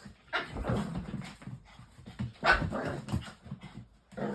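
Two dogs play-fighting: a run of short, irregular dog noises and scuffles, rough play rather than a real fight.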